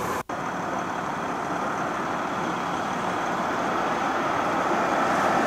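Fire engine running at the scene, pumping water to a hose line: a steady rushing noise that grows a little louder near the end. A brief gap in the sound comes a moment in.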